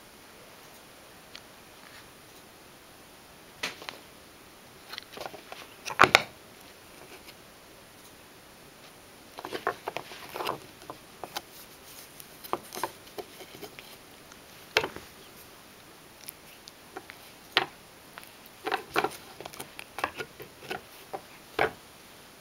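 Irregular clicks, knocks and gnawing of a ragdoll cat biting and chewing a pruned kiwi branch and knocking it about on a wooden floor, with the loudest knocks about six seconds in.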